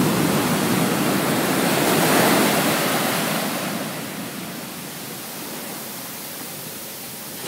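Ocean surf: whitewater from a broken wave rushing through the shallows toward the beach. It is loudest at first and eases to a softer wash about four seconds in.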